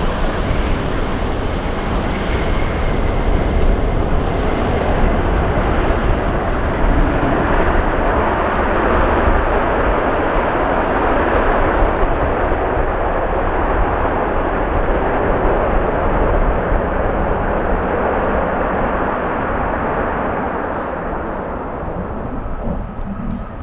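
Jet engine noise from a United Boeing 757 landing, a loud steady rush that swells through the middle and fades over the last few seconds. Wind buffets the microphone throughout.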